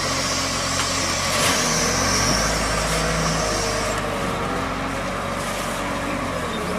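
Engine of a heavy earthmoving machine, a loader-bulldozer, running steadily with a low hum.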